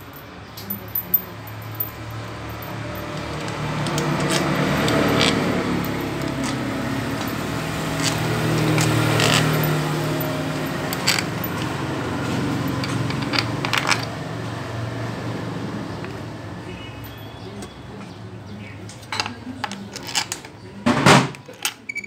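Hand tools clinking and tapping on metal as the bolts of a Bajaj Pulsar 150's clutch cover are fitted and tightened: scattered sharp clicks, then a quick run of louder knocks near the end. Background voices run underneath.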